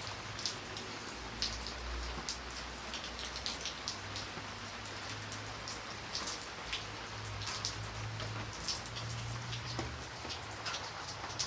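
Light rain falling, a steady hiss with many separate drops ticking and pattering on a surface, over a faint low hum.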